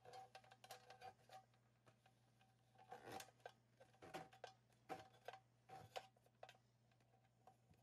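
Near silence, with faint scattered clicks and light knocks from flexible conduit and its connector being handled at the cable entry of an electrical enclosure, over a low steady hum.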